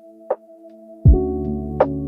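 Background music: a soft sustained chord, joined about a second in by a deep low note that fills out a fuller held chord, with a couple of sharp clicks.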